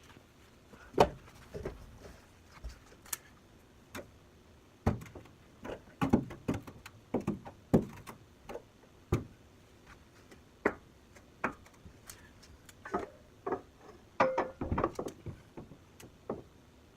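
Irregular knocks and clunks, some with a short metallic ring, as a steel roll-cage main hoop is worked into a car's interior and bumps against the body.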